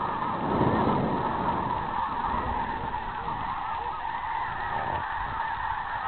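A large flock of geese calling in flight, a dense continuous chorus of honks. A brief low rumble on the microphone about half a second in.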